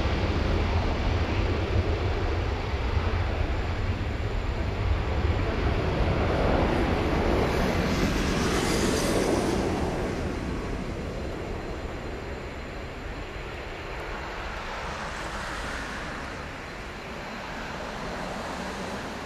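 Jet engines of a Boeing 777-200 running at low thrust as the airliner turns and moves away along the runway: a steady engine noise with a deep rumble that swells about eight seconds in as the tail and exhausts swing toward the listener, then slowly fades as the aircraft draws away.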